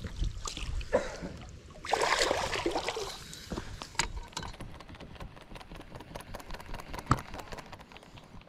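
Footsteps and clothing rustle as someone walks over grass and rocks on a pond bank, with a louder scuffling stretch about two seconds in and scattered small clicks and knocks.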